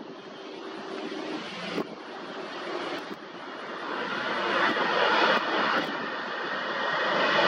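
Twin jet engines of an Airbus A320-family airliner moving along the runway: a steady rushing that grows louder over the second half.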